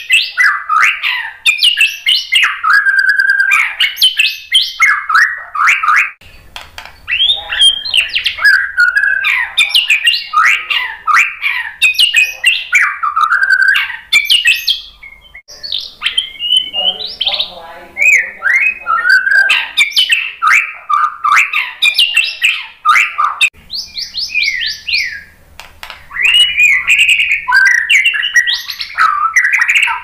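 White-rumped shama singing a long, varied song of whistles, sweeping slurs and fast trills, broken by a few short pauses. About two-thirds of the way through comes a quick run of falling notes.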